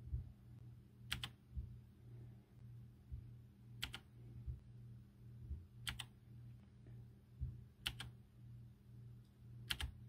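Blue-switch mechanical keyboard with round typewriter-style keycaps clicking: five single key presses about two seconds apart, each one switching the backlight effect, over a low steady hum.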